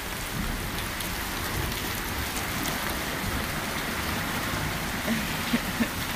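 Steady hiss of falling rain, with a few soft knocks about five seconds in.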